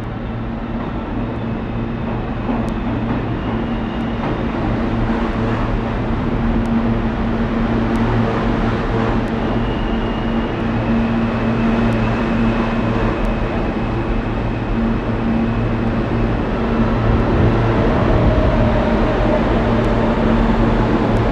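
R160 subway train pulling into the station alongside the platform: a steady rumble of wheels on rail with a low hum and a thin high motor whine, growing gradually louder as the cars pass.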